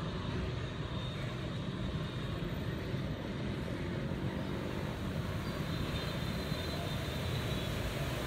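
Steady low rumble of background noise, even throughout with no distinct events.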